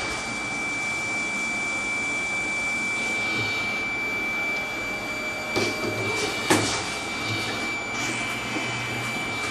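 TriFLEX microplate washer running its wash cycle: steady hiss of the aspiration vacuum under a constant high whine, with a low hum switching on and off and two sharp clicks a little past the middle.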